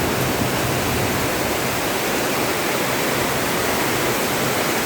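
Heavy rain pouring down in a steady, even rush, with no break or let-up.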